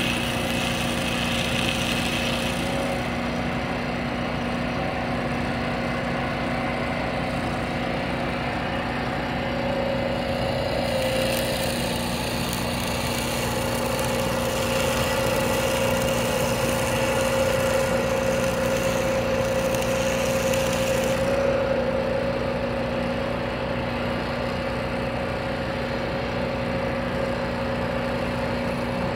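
Stick-welding arc crackling and sizzling on the steel wheel mount of a disk harrow, for the first few seconds and again for about ten seconds midway. Under it a tractor engine idles steadily.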